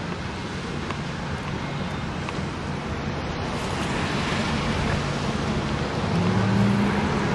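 Chevrolet Corvette C8 driving slowly: wind and road noise, getting gradually louder, with a steady low engine hum coming up about six seconds in.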